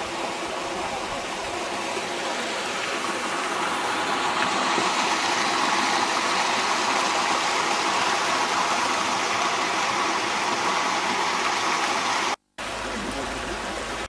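Mountain stream rushing over rocks, a steady even noise that swells a little a few seconds in. It cuts out for a moment near the end, and after that a low rumble is mixed in.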